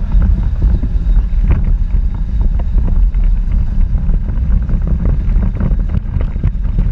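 Power Racing Series electric race car at speed, heard from its onboard camera: wind buffeting the microphone as a steady low rumble, with scattered rattles and knocks from the car.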